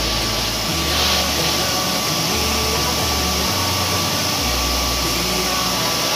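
Steady mechanical whirring hiss with a constant faint high tone running under it, even in level throughout.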